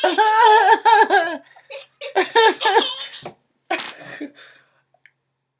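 A person laughing hard in high-pitched bouts: a long laugh over the first second and a half, another about two seconds in, and a short burst near four seconds.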